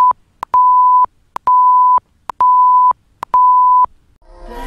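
An electronic beep tone repeating about once a second, each beep about half a second long, four full beeps, with a click at the start and end of each. Music fades in near the end.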